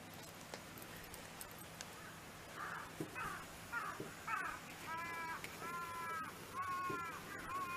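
A bird calling outdoors: a run of about eight short calls starting around two seconds in, each slightly arched in pitch, coming quicker and clearer toward the end.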